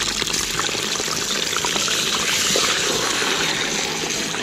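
Wild duck meat frying in hot oil in a pot, a steady sizzling hiss with small crackles, just after the meat has gone into the oil to brown.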